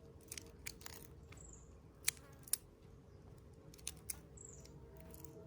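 Shells of large prawns snapping as they are peeled by hand: a handful of sharp, faint clicks spread out, with two brief high chirps.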